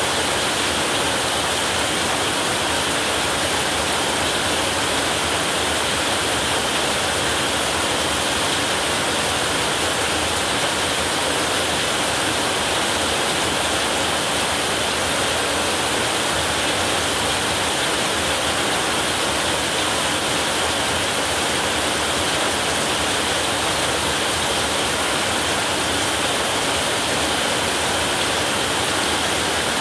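Heavy rain falling steadily on a roof, an even hiss without thunder claps or breaks.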